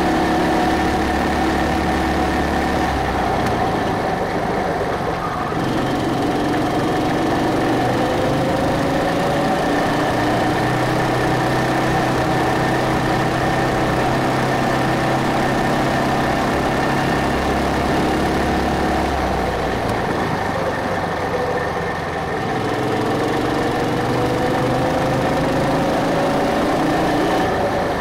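Go-kart's small petrol engine running at speed around a track. Twice its note dips and then climbs steadily in pitch as the kart accelerates again.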